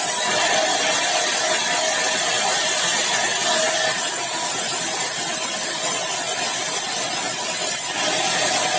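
Sawmill saw cutting through a large, dry bengkirai (balau) hardwood log: a steady, even noise with a strong hiss and a faint whine.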